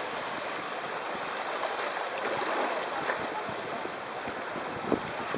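Water rushing down an open Van Egdom waterslide flume as a rider slides through the bends, a steady wet rush. There is a brief louder splash or bump near the end.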